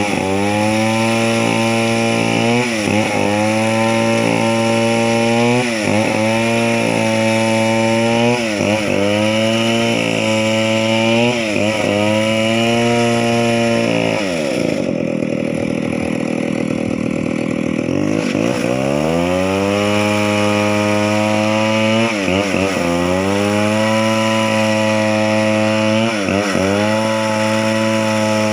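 Two-stroke chainsaw engine running at high speed, its pitch dipping briefly every couple of seconds. About halfway through it drops to a lower pitch for around four seconds, then climbs back up to full speed.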